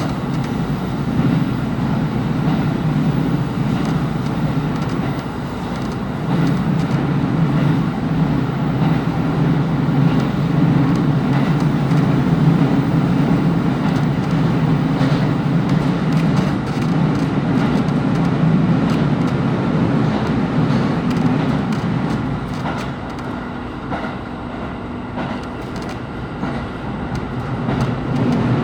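JR KiHa 25 diesel railcar heard from on board while running: a steady low diesel drone with wheel and rail noise and occasional clicks over rail joints. The drone eases for a few seconds near the end, then builds again.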